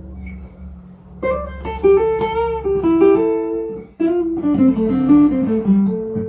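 Tagima Jumbo Maple acoustic guitar played: two short phrases of picked single notes, the second stepping downward and ending on a ringing note.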